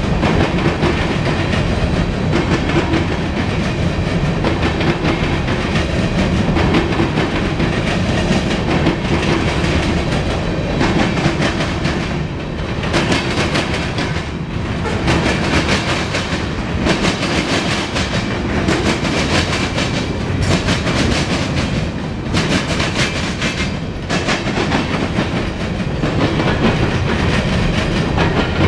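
Freight train cars, mostly covered hoppers, rolling past: a steady noise of steel wheels on rail with repeated clacks as the wheels cross rail joints.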